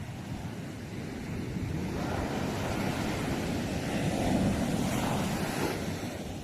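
Sea waves breaking: a wave surges in about two seconds in, grows loudest past the middle, then washes back and fades.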